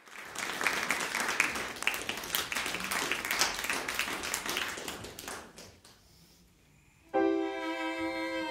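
Audience applause that fades away over about six seconds, then after a short pause a violin comes in with a long held bowed note.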